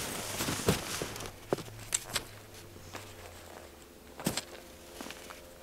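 A person moving about and handling gear in snow: scattered light knocks and clicks, busier in the first couple of seconds, with a sharper knock a little past the middle.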